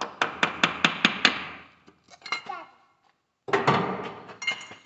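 Metal on metal at the tractor's engine: a fast run of about eight sharp taps, about six a second, then a few lighter clinks and a short jangling clatter near the end.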